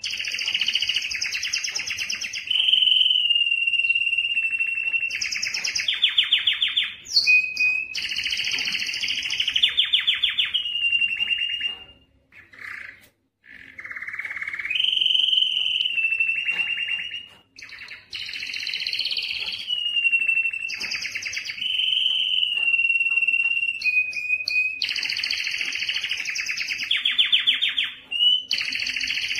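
Male domestic canary singing in excited, breeding-condition song: fast rolling trills alternating with held whistled notes. The song breaks off briefly about twelve seconds in, then resumes.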